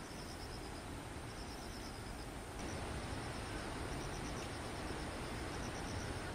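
Insects chirping in short, rapid high-pitched trains about a second long, repeating with gaps over a steady rushing background noise.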